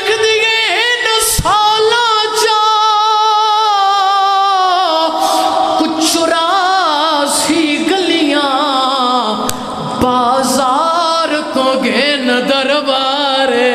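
A young man singing a zakir's lament unaccompanied into a microphone, holding long notes with wavering, ornamented pitch and taking short breaths between phrases.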